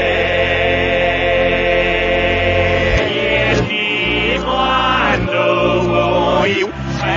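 Music: held chords over a steady low bass note, changing to new chords every second or so after about three seconds.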